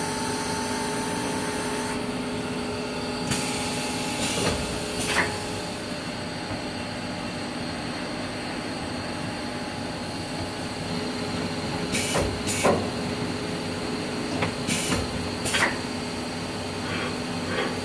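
CNC servo turret punch press running: a steady hum with a few held tones. A high air hiss cuts off about two seconds in. After that, short sharp hisses and clicks come at intervals, several in close pairs.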